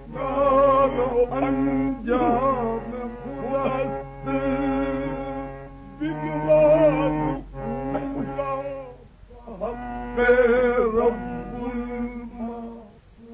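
Qawwali: a male voice sings a slow, ornamented melodic line over held harmonium notes, in phrases a few seconds long with short breaks between them. It is an old 1960 recording, narrow and muffled in tone.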